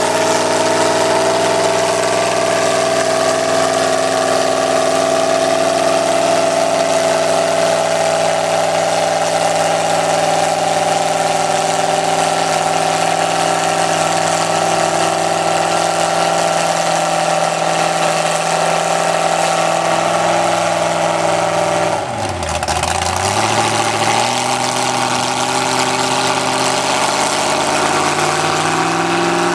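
An engine running at a steady speed. A little over two-thirds of the way through, its pitch drops sharply and climbs back over a couple of seconds, and it rises again near the end.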